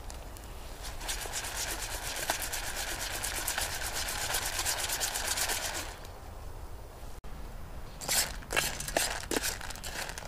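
Wet piñon nuts sliding and rattling in a small metal pan as it is shaken on the stove, a dense scraping run for about five seconds. After a short lull, sharper clicks and scrapes as the nuts are turned.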